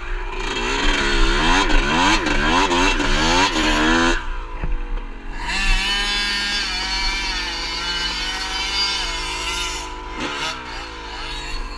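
Two-stroke Yamaha YZ dirt bike engine being ridden hard in sand. Its revs swing rapidly up and down for the first four seconds, then after a brief dip it holds high and fairly steady, falling and climbing again near the end.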